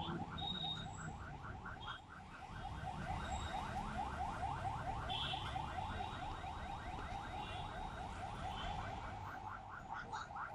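A steady electronic alarm chirping rapidly, about five short rising chirps a second without a break.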